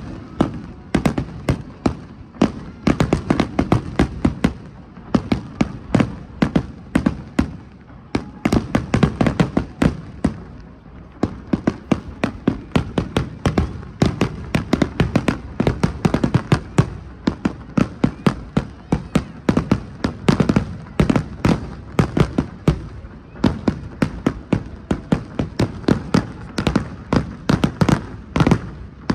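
Fireworks display: a dense, unbroken run of sharp bangs and crackles, several a second, over a low rumble.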